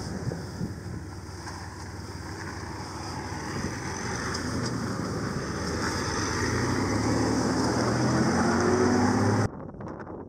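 1999 GMC Jimmy's V6 engine pulling the truck up a steep dirt climb, getting louder and rising a little in pitch as it nears, then cutting off suddenly near the end.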